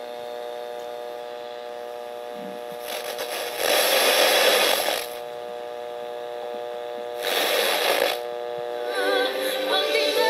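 Audio from a homemade FET super-regenerative FM receiver played through a small external speaker: a steady mains hum from a nearby fluorescent lamp, two bursts of loud rushing hiss as the set is tuned across the band, then music with singing from an FM station coming in near the end.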